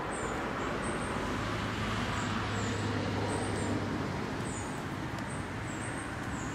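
Steady outdoor background noise of distant road traffic, with a low engine hum swelling in the middle as a vehicle passes. Faint short high chirps repeat irregularly throughout.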